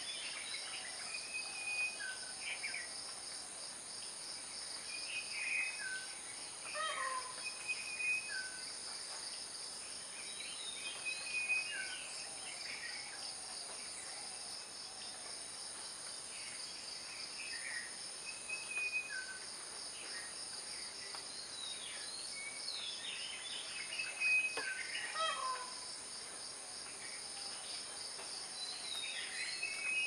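Birds calling in scattered short whistled notes and quick downward-sliding calls over a steady high-pitched insect drone with a fast pulse.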